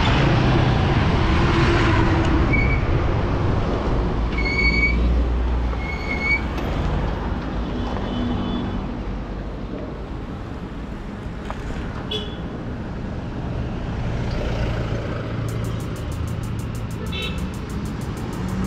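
Steady road and traffic noise from riding a two-wheeler, with three short horn toots within the first several seconds.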